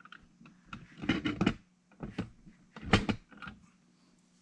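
A few soft knocks and clicks of handling, clustered about a second in with single ones near two and three seconds, over a faint steady low hum.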